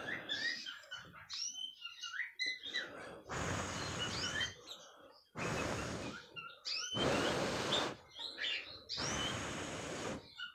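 Canaries chirping with short high calls, broken by four long puffs of breath blown onto a male canary's belly feathers to part them, each about a second long.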